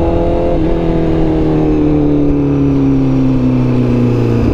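Honda CBR1000RR-R Fireblade SP's inline-four engine, heard from the rider's seat, its note falling steadily as the bike slows, with a small step in pitch about half a second in.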